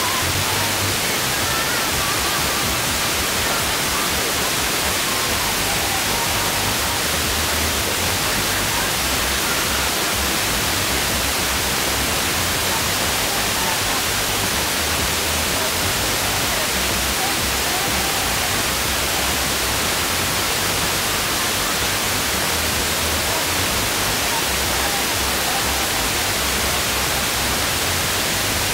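FM radio receiver tuned to 89.8 MHz putting out a loud, steady hiss with faint traces of programme buried underneath and a low hum that comes and goes. The uploader puts the garbled signal down to the transmitter's stereo encoder being swamped by interference from its switching power supply.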